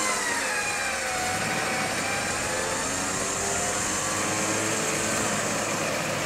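4x4 engine revving during a mud recovery: its pitch drops in the first second, then it runs on steadily with small rises and falls.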